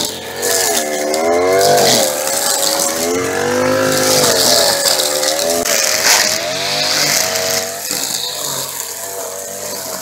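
String trimmer's engine running, its revs rising and falling again and again as the throttle is worked, with a steady hiss above the engine note.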